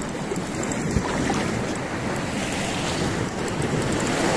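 Sea surf washing and breaking over a rocky shoreline, with wind buffeting the microphone. There is one short tap about a second in.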